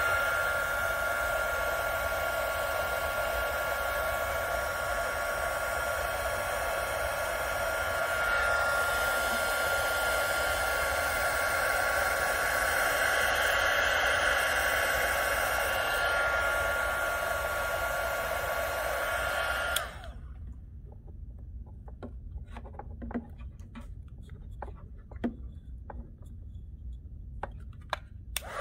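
Handheld heat gun blowing steadily with a thin high whine from its fan motor, shrinking heat-shrink tubing over spliced wire connectors. It switches off suddenly about twenty seconds in, leaving only faint scattered clicks and taps of handling the wires.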